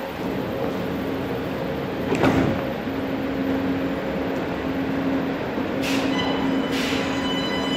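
CSR-built metro train standing at an underground platform: its sliding doors shut with a knock about two seconds in over a steady equipment hum. Two short hisses follow near six and seven seconds, then a steady whine starts near the end as the traction motors come on for departure.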